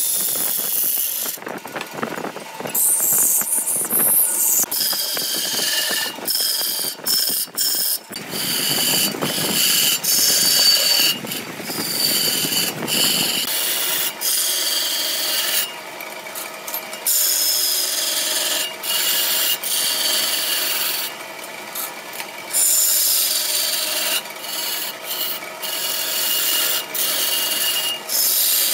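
Hand gouge cutting a large root-ebony vase blank spinning on a wood lathe: a rushing, scraping cut that breaks off and starts again many times. The cut turns heavier and deeper for about five seconds in the middle.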